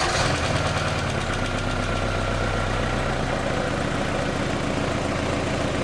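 Audi A4 B5's 1.6-litre ADP 8-valve four-cylinder petrol engine catching from cranking and idling steadily, on its first start after repair of a knock from a worn hydraulic lifter. The idle is slightly higher for about the first second, then settles.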